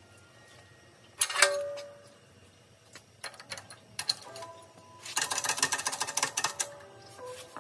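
Steel bearing-race driver pieces and hub tooling clanking against each other while being set up on a hydraulic shop press: one sharp ringing clank about a second in, scattered clicks, then a burst of rapid metallic clattering near the end.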